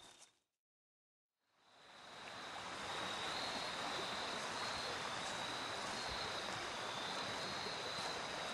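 A second or so of dead silence at an edit, then the steady rush of a flowing creek fades in and holds, with a faint high insect trill running over it.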